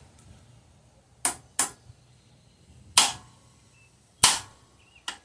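Hammer rapping the end of a three-jaw gear puller, five sharp metallic strikes at uneven intervals, with the puller under tension to shock a stuck steering wheel loose from its shaft.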